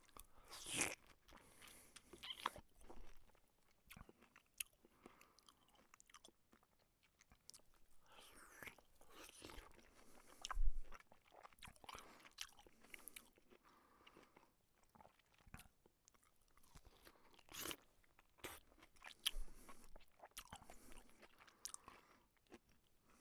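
A porcupine chewing food: faint, irregular crunching bites, with one louder crunch about ten seconds in.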